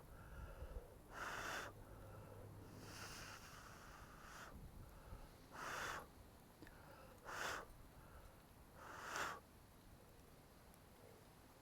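Five short breathy puffs of air, about a second and a half apart, against near silence.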